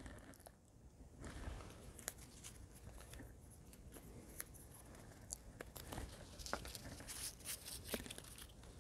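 Faint rustling and crinkling of small printed paper slips being handled by hand, with scattered light clicks and crackles.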